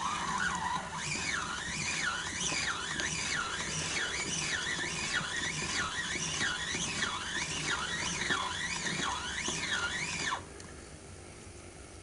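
Casdon Hoover Electron 1100 toy washing machine with its drum turned by hand, the suspension squeaking: a high squeak sliding up and down in pitch over and over, about one and a half times a second, that stops suddenly near the end.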